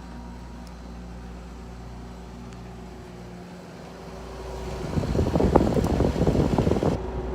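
GE 12,000 BTU J Series wall air conditioner running on low cool with a steady hum, just after start-up and not yet blowing cold. About five seconds in, a loud rough rustling noise lasts for about two seconds.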